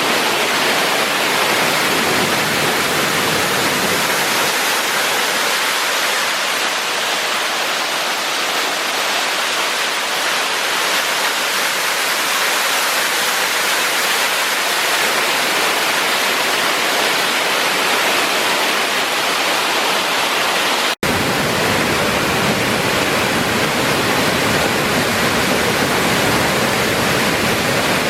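Waterfall pouring: a loud, steady rush of falling water, broken by a momentary dropout about three-quarters of the way through.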